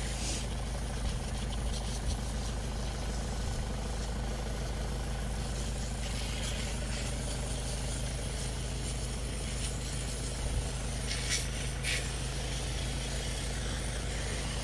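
Water hissing from a garden-hose spray gun as it washes down a mountain bike, with a few brief louder hisses, over a steady low engine-like hum.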